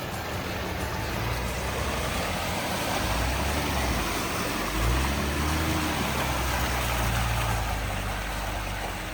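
Jeep engine running as it drives a muddy off-road trail, revving up briefly about five seconds in, over a steady rushing noise.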